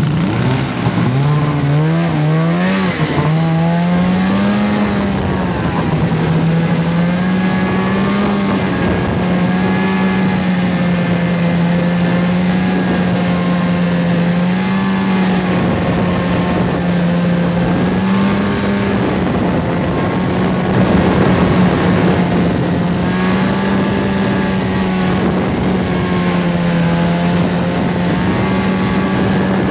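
Snowmobile engine running at trail speed, its pitch climbing in steps over the first few seconds, then holding fairly steady with small rises and dips as the throttle varies.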